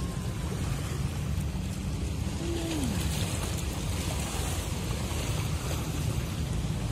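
Steady low rumble of a ship's engine mixed with wind and water noise. A brief falling tone sounds about two and a half seconds in.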